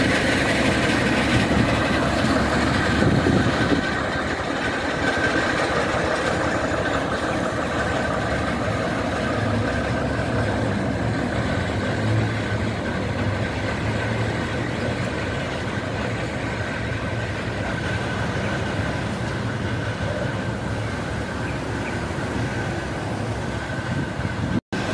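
Small narrow-gauge diesel locomotive of a sugar-cane railway running steadily, its engine hum a little louder for the first four seconds and then steady as the locomotive moves off along the track.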